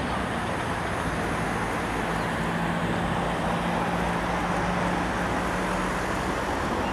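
Steady road-traffic noise, with a low vehicle engine hum holding steady through the middle of the stretch.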